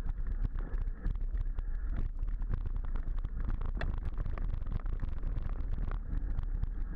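Mountain bike rolling fast down a rough, rocky dirt descent: a continuous irregular rattle and clatter of the bike and its handlebar-mounted camera jolting over stones, with wind buffeting the microphone as a steady low rumble.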